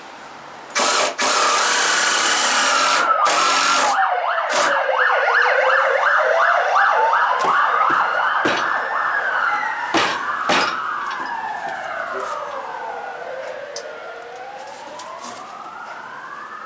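Emergency-vehicle siren wailing, its pitch sweeping slowly up and down, with a fast warbling stretch in its first seconds and a second siren overlapping it in the later part; it fades toward the end. About a second in, a loud rushing noise lasts about three seconds.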